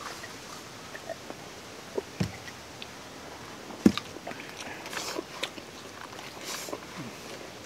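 Quiet eating sounds: scattered small clicks and rustles of hands picking fried rice off a banana leaf, and chewing. There are two sharp knocks, one about two seconds in and a louder one about four seconds in.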